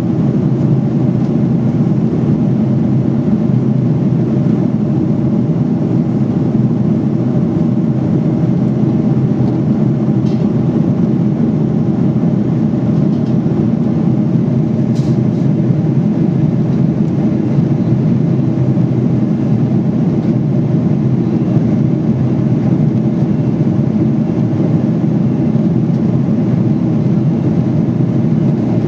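Steady in-flight cabin noise of a jet airliner heard from a window seat: the even, low rushing of the engines and the airflow over the fuselage, unchanging throughout. A faint click comes about halfway through.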